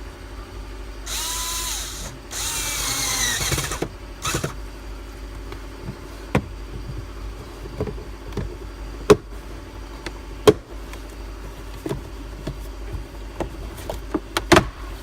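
A handheld power drill-driver runs twice in short bursts, the second slowing down as it stops, followed by scattered light clicks and knocks.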